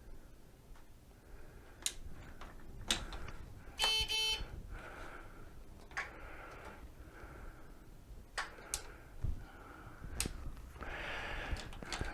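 Switch clicks on a Pride Maxima mobility scooter's tiller as its lights and turn signals are tested, with one short electronic beep from the scooter about four seconds in. One side's turn signal is not working, which points to a faulty turn-signal unit.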